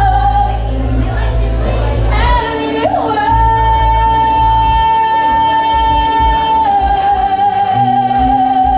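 A woman singing into a microphone over a backing track with a steady bass. About three seconds in she holds one long high note, which drops slightly in pitch about two-thirds of the way through and is held to the end.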